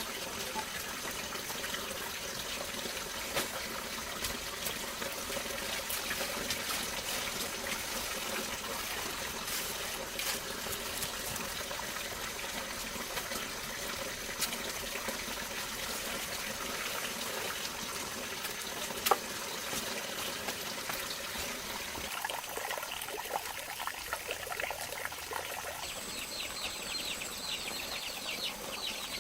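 Water trickling and splashing, with scattered small clicks. In the last several seconds, chirping calls come in, then a steady high-pitched trill.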